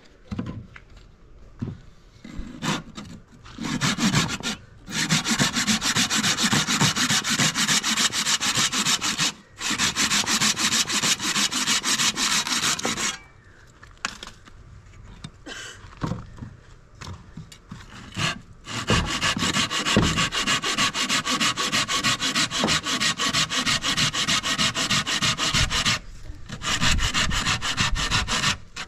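A tool rasping on wood in two long spells, each several seconds long, with a few short scrapes between them.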